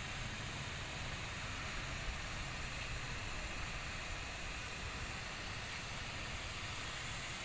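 Steady hiss of a fine high-pressure water spray from an HTP sprayer gun striking a concrete wall.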